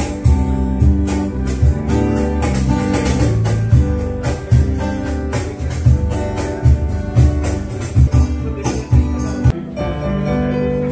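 Music with sustained notes over a steady percussive beat.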